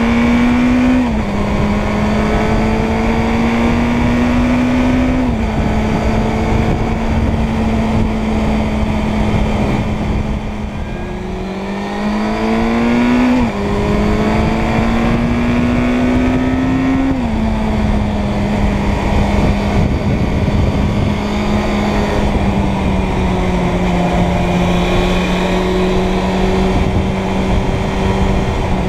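Suzuki Bandit 600's inline-four engine pulling on the road, with heavy wind noise on the microphone. The engine note climbs slowly and drops sharply several times at upshifts, and eases off with a falling pitch about ten seconds in before picking up again.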